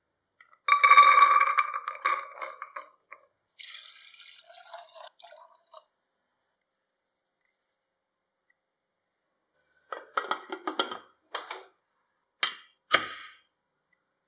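Soaked chickpeas tipped from a steel bowl into a Pigeon aluminium pressure cooker, clattering against the pot with a ringing metallic tone. Water is then poured in with a hiss. About ten seconds in comes a run of small clinks and knocks, ending in one heavier knock as the cooker's lid is set on.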